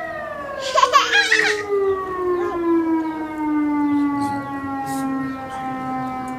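Siren winding down from a high wail to a steady lower tone that holds: the iftar siren signalling the time to break the Ramadan fast. A child's voice rings out briefly about a second in.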